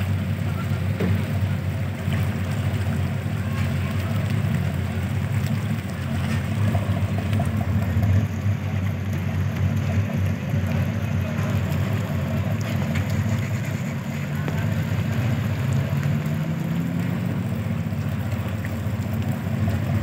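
Large passenger ship's engines running with a low steady drone, with a faint rising tone about three quarters of the way through.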